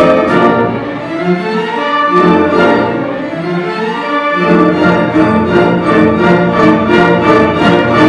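Full orchestra playing a waltz, violins, cellos and double basses to the fore. The music grows fuller and louder about halfway through, with a steady beat.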